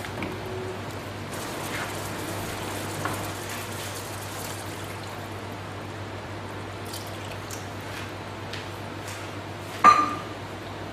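Water being poured into a pan of beef simmering in coconut milk and curry paste, over a steady low hum. A single sharp clink rings out near the end.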